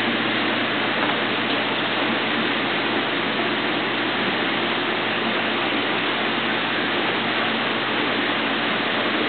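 Steady rushing of water in a large reef aquarium's circulation, the overflow and sump, with a low steady hum underneath.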